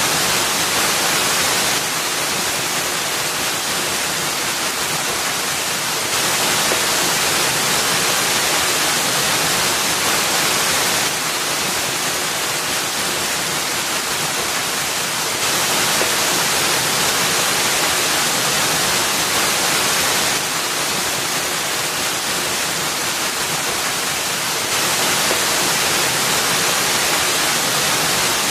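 Waterfall splashing into a pool, a steady, full rush of falling water. Its loudness steps slightly up and down every few seconds.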